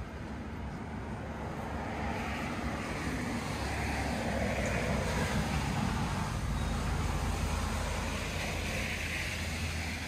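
Distant motor vehicle passing: a low rumble with a smooth hiss that swells over several seconds and eases near the end.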